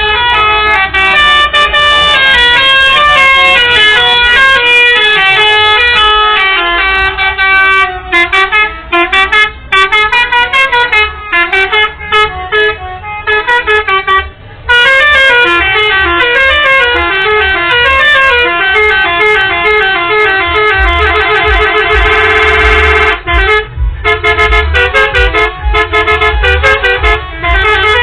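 Indonesian 'telolet' musical bus horns play a continuous string of quick multi-note tunes, their tones stepping up and down in pitch. About three-quarters of the way through they switch to a fast warbling trill, over a low rumble.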